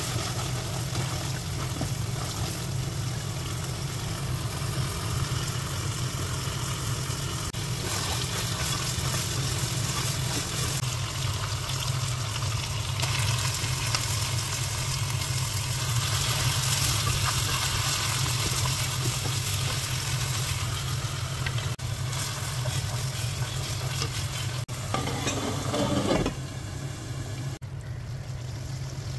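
Mutton and fenugreek curry sizzling and bubbling in a pan while a spatula stirs it, over a steady low hum. The sound changes abruptly a few times and is quieter near the end.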